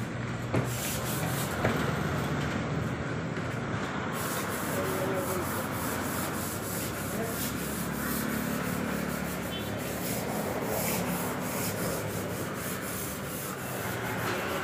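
Sheet of sandpaper rubbed by hand back and forth over a mahogany tabletop, a steady scratchy sanding sound.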